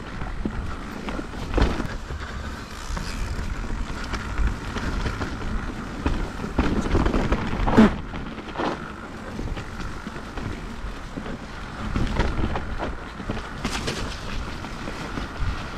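Mountain bike rolling down a rough trail: tyres rumbling over the ground, the bike rattling, and a string of knocks, the loudest about halfway through.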